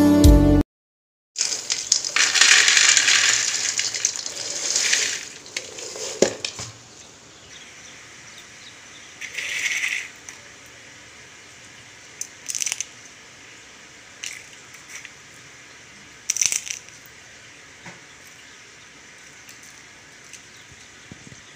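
Crisp fried nimki (maida snack pieces) handled on a plate: a longer hissy rustle in the first few seconds, then a few short dry rattling crunches as a hand picks up and drops the pieces.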